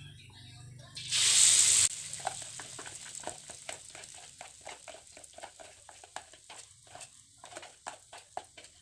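Noodle-and-egg mixture going into hot frying oil: a loud burst of sizzling about a second in, lasting under a second, then frying with irregular crackling pops.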